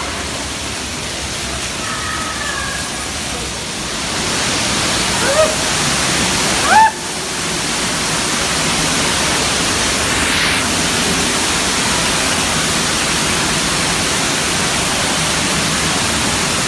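Rushing water, like a waterfall or water slide flow, making a loud steady noise that grows louder about four seconds in. Two brief rising cries or whistles cut through it around five and seven seconds in.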